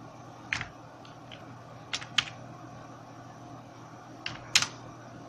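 Computer keyboard keystrokes: a handful of separate, irregular key clicks, a pair about two seconds in and another pair near the end, over a faint low hum.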